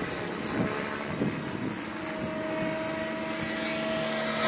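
Align T-Rex 700 radio-controlled helicopter flying overhead: steady rotor and drivetrain noise, with a high steady whine that comes in about halfway through and holds.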